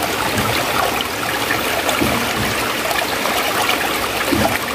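Shallow stream water running steadily and splashing against a split piece of bamboo held in the current while it is washed.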